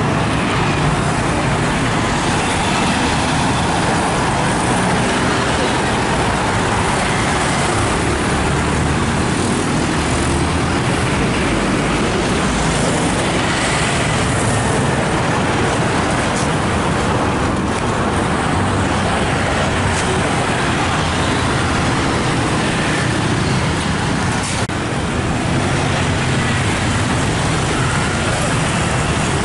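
Busy street traffic: cars, vans and motor scooters passing steadily with a continuous road noise.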